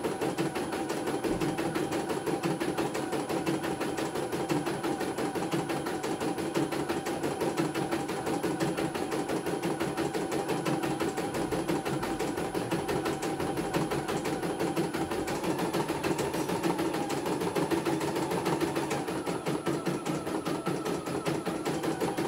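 CNY E900 computerised embroidery machine stitching a design: a rapid, even mechanical clatter of the needle at work, running steadily without a pause.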